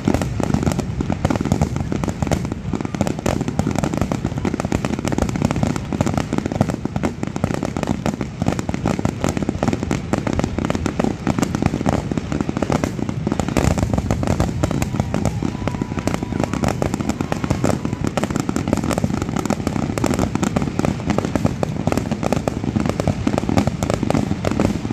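Aerial firework shells bursting in rapid, almost unbroken succession, many reports overlapping into a continuous barrage of booms and bangs.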